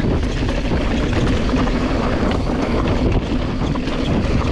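Wind rushing over the microphone as a Specialized Turbo Levo e-mountain bike rides down through rocks, with scattered knocks and rattles from the tyres and bike over the rocky ground.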